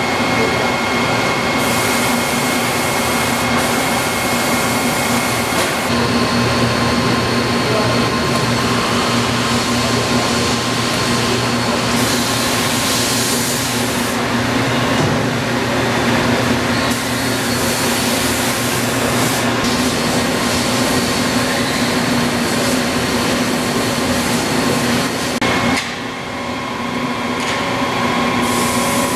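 Stelron RD-3 cam-driven index drive and its electric gear motor running a rotary dial machine: a steady mechanical hum and whine with several held tones.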